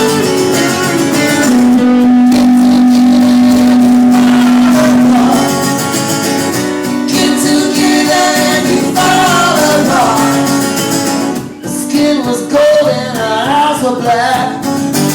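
Live band playing a song, with strummed guitars to the fore, and singing coming in near the end.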